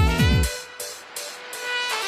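Electronic intro music with held synth tones; the bass beat stops about half a second in, leaving the higher tones.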